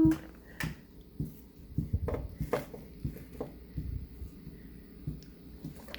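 Watermelon being chewed: a series of irregular short chomps and clicks.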